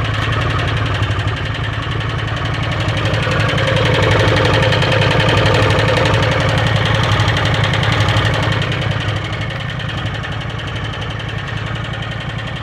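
Arctic Cat Wildcat 1000 H.O. V-twin engine running in neutral, with a rapid regular tick riding on it. It swells louder for several seconds mid-way, then settles back. The owner places the tick at the top of the rear cylinder and doesn't think it is the clutch.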